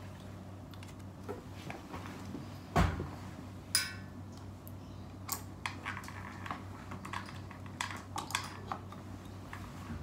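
Light clicks and knocks of small hard objects being handled, with two louder knocks about three and four seconds in, over a faint steady low hum.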